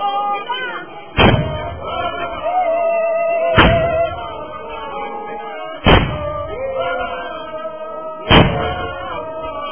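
A group singing a call-like melody while a heavy drum is struck once every two and a half seconds, four strikes in all, each the loudest thing heard.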